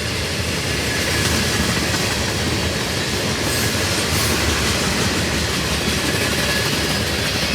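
Freight cars rolling past on the rails: a steady rumble and clatter of steel wheels, swelling slightly about a second in.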